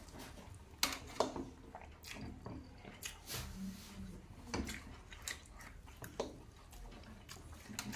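Two people eating spicy Korean noodles close to the microphone: slurping and chewing, with scattered short clicks and smacks.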